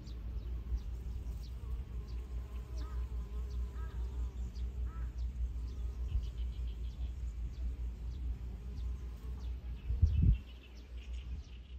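Wind buffeting the microphone in a pulsing low rumble, with short high bird chirps scattered throughout. A louder low thump comes about ten seconds in.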